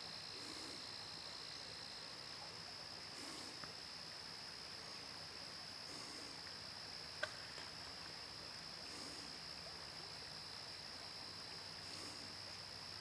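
Faint outdoor ambience of insects trilling steadily in one high unbroken note over a soft river murmur. A short higher buzz comes back about every three seconds, and a single sharp click sounds about seven seconds in.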